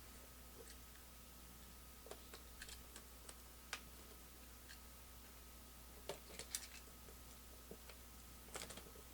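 Faint, scattered light clicks and crinkles of trading-card boxes, packs and cards being handled and opened, over a low steady hum.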